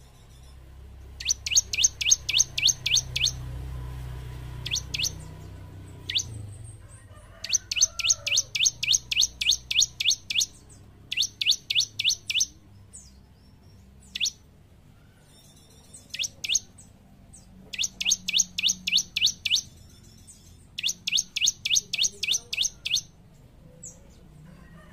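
Bar-winged prinia (ciblek) singing: rapid runs of sharp, high chip notes, about five a second, in bursts of one to three seconds, with single notes between the bursts. A faint low hum runs underneath.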